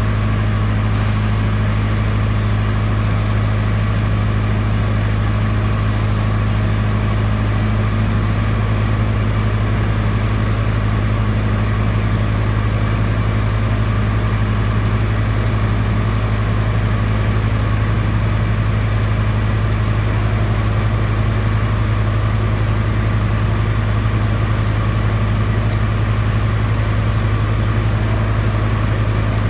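Perkins diesel engine of a 20 kW silent generator set running steadily at constant speed, a low even hum with no change in pitch or level. It is running with no electrical load on it yet.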